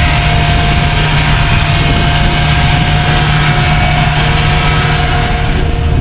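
Handheld electric paddle mixer running steadily, stirring epoxy adhesive in a pail, with a steady whine over a low hum.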